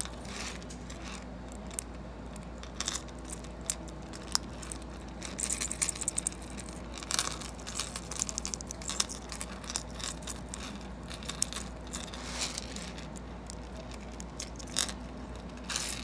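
Diamond box clasp on a gold link chain being worked open and shut by hand: irregular small metallic clicks as the tongue slides into and out of the box, with the chain links clinking.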